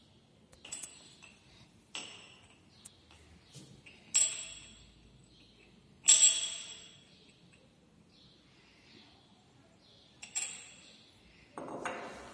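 Glassware clinking as a brown glass reagent bottle of phenol is uncapped, poured into a glass measuring cylinder and set down on a stone lab bench: several separate sharp clinks with a brief ring, the loudest about four and six seconds in, and a duller knock near the end.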